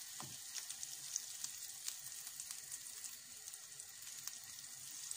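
Butter sizzling as it melts and foams in a frying pan: a steady high hiss with scattered small crackling pops.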